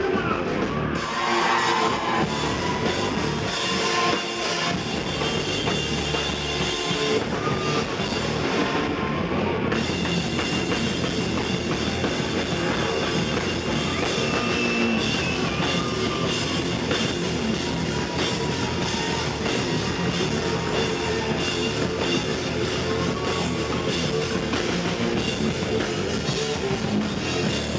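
Rock band playing live: drum kit and electric guitars, loud and continuous.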